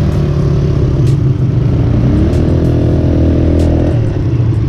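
Quad ATV engine running close up on a dirt trail, revving higher about two seconds in, holding there, then easing off near the end. A few sharp clicks are heard over it.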